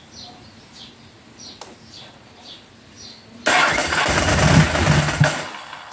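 Ducati 749S's V-twin engine is cranked and catches suddenly about three and a half seconds in. It runs for a couple of seconds, then fades. It has been started with the fuel pump unplugged to clear a suspected flooded engine.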